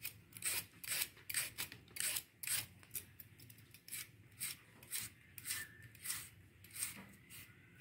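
Fresh bamboo shoot being shaved with a handheld slicer, short crisp scraping strokes at about two a second.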